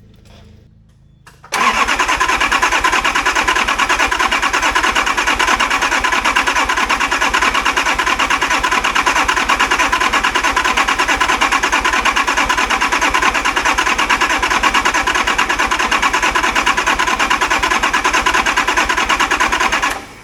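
Nissan RD28 2.8-litre six-cylinder diesel turning over on its starter motor without firing. The cranking is a steady, fast, even rhythm that starts abruptly about a second and a half in and stops abruptly near the end. It is the sign of no fuel getting through: the owner suspects air in the injector pump.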